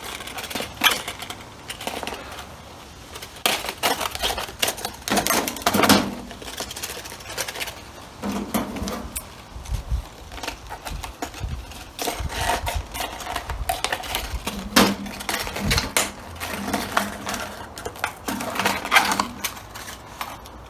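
Irregular clicks, knocks and rattles of a copper oil-pressure-gauge tubing kit and its small fittings being handled and sorted.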